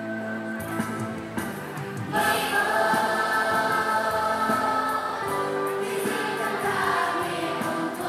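A group of children singing together as a choir over instrumental accompaniment. The voices come in about two seconds in after a short instrumental passage.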